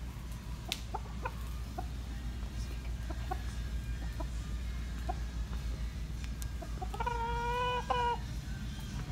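Rooster clucking softly in short scattered notes, then giving one drawn-out call lasting about a second near the end, over a steady low rumble.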